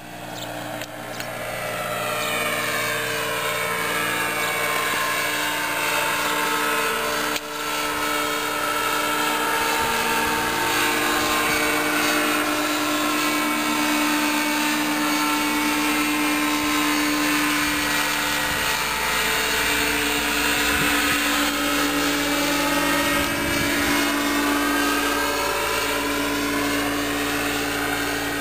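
Engine and pusher propeller of a powered hang glider (microlight trike) droning steadily as it flies overhead. It sounds nearest about halfway through, with the tone sweeping as it passes.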